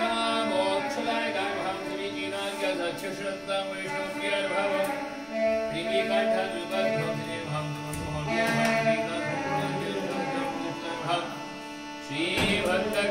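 South Indian devotional temple music in Carnatic style: singing with long held notes and gliding pitch, running on without a break.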